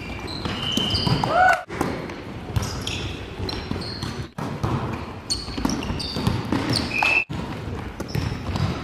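Indoor volleyball play: the ball being hit, sneakers squeaking briefly on the wooden gym floor, and voices echoing in the sports hall, broken three times by short dropouts where clips are joined.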